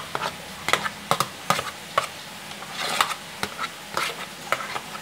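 Metal spoon stirring small mairo fish through thick flour batter in a plastic bowl: irregular wet squelches and clicks, about two a second.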